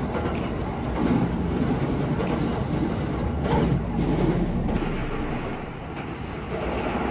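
Electric commuter train running along the line, heard from inside the carriage: a steady rumble of wheels on rails and running gear, easing off slightly about five seconds in.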